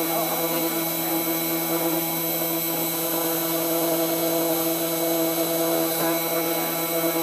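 Spindle motor of a homemade wooden CNC mill running with a steady whine, its bit milling a copper-clad FR-4 circuit board.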